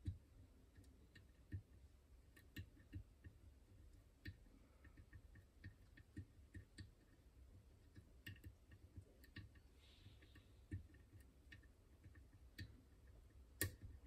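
Faint, irregular clicking of a steel pick and bent-wire tension tool working the heavily spooled, tapered pins of a French Izis lock, with one sharper click near the end.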